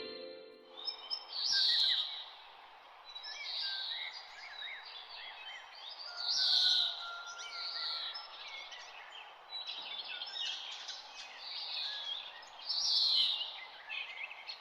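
Birds chirping and singing over a steady outdoor hiss, with louder falling calls at about 1.5, 6.5 and 13 seconds. A piano note dies away at the very start.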